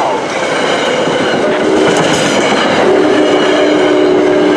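NJ Transit commuter train running through the station close by, a loud rush of wheels and rolling stock with clicking over the rail joints; a steady whine joins about one and a half seconds in and grows stronger near three seconds.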